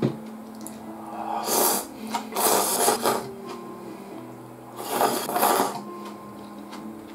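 A person slurping ramen noodles from chopsticks in three loud, rasping bursts, about one and a half, two and a half, and five seconds in.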